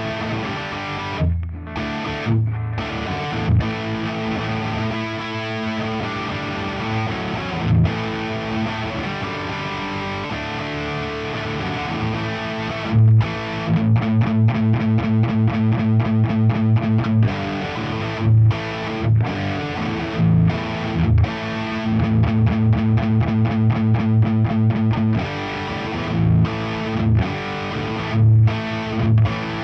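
Electric guitar, a Nik Huber Krautster I with its single stock Haussel pickup, played through a distorted Diezel VH4 amp into a Marshall 4x12 cabinet: heavy distorted riffing with sustained chords, turning about halfway to a fast, even chugging rhythm broken by short sudden stops.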